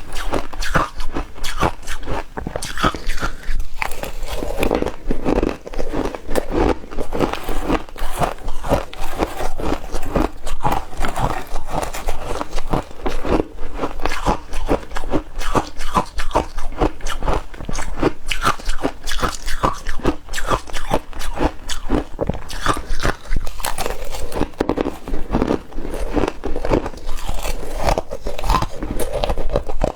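Ice being bitten and chewed: a run of rapid, loud crunches that keeps going without a break.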